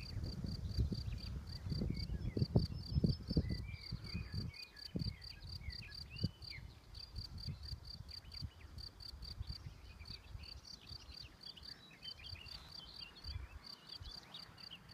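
A cricket chirping steadily, a high even pulse about four times a second, with small birds singing faintly behind it. Low rumbling thumps on the microphone during the first few seconds.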